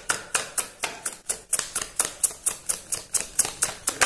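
A deck of tarot cards being shuffled by hand: quick, regular slaps of cards falling onto each other, about five a second.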